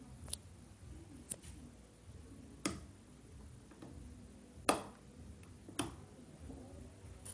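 Five sharp clicks at uneven intervals over a faint low rumble.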